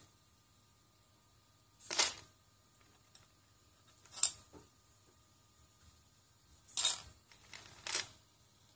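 Loose plastic Lego bricks clacking and shifting under the feet of a four-legged servo-driven walking robot as it steps across the pile. Four sharp clatters come about two seconds apart, with a few lighter clicks between them.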